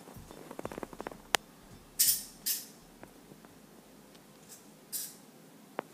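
Small clicks and taps, then a few short hissing bursts, twice close together about two seconds in and once more near the end.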